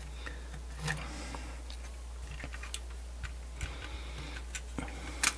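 Scattered light clicks and taps as a portable CD player's circuit board is handled and fitted against its plastic housing, with a sharper click near the end, over a steady low hum.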